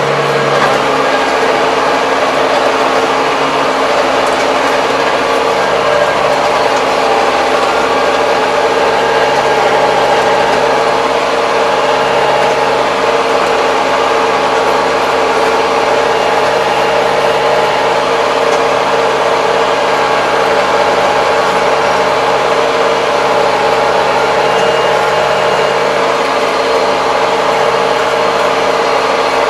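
Kubota 75 hp tractor's diesel engine running steadily at an even pitch, heard from inside the cab.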